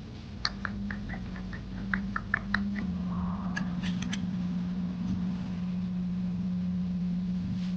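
Metal parts clinking and clicking about a dozen times in quick succession, with a steady low hum underneath that grows louder about three seconds in.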